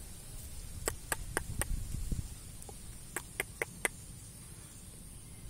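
Sharp clicks in two runs of four, about four a second, over faint low rustling.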